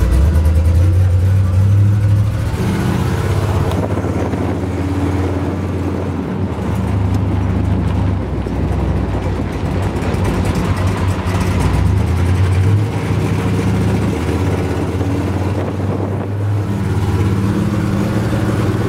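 1957 Chevrolet 3100 pickup's 383 stroker V8, running through headers and Flowmaster dual exhausts, pulling the truck down the road. The engine note rises and drops several times as it accelerates and eases off.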